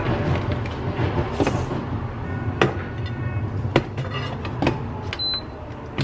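A rice cooker being filled and shut: scattered clicks and knocks as rice goes from the bag into the inner pot and the lid comes down, over a steady low hum. Near the end come short high electronic beeps from the cooker's control panel.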